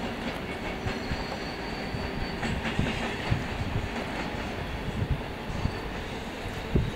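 Double-deck passenger trains hauled by SBB Re 460 electric locomotives rolling slowly through the station throat. The wheels rumble and click over points and rail joints, with a faint high wheel squeal.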